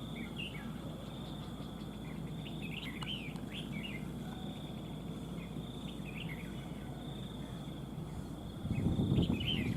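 Red-whiskered bulbuls giving short chirping song phrases several times over a steady high insect drone. A louder low noise comes in near the end.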